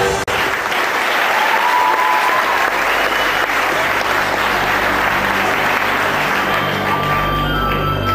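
Audience applauding in a theatre as the dance music stops just after the start. About seven seconds in, the next piece of music begins with low, sustained notes under the clapping.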